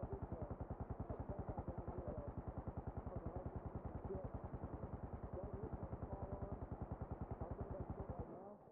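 Rapid, even low mechanical thumping, about ten beats a second, with faint wavering tones over it; it cuts off abruptly shortly before the end.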